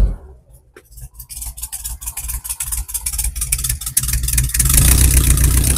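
Air-cooled VW flat-four engine, freshly started, falling at once to a slow, uneven idle where the separate firing pulses can be heard. It then picks up again and runs loud from about four seconds in, as the throttle is worked by hand at the carburetor.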